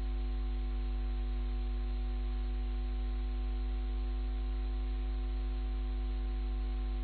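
Steady electrical hum and hiss on the recording, with a deep low hum and several constant faint tones, unchanging throughout.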